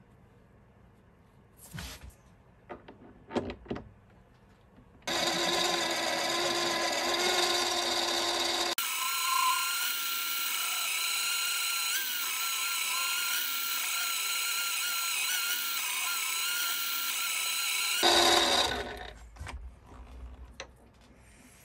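Mini metal lathe running steadily, a motor whine with a steady high tone, while a carbide insert tool turns a steel disc. It starts about five seconds in after a few light handling clicks, changes in tone at a cut about nine seconds in, and stops near the end, followed by a few quiet clicks.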